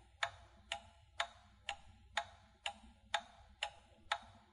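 Countdown-timer sound effect: a clock ticking steadily, about two ticks a second.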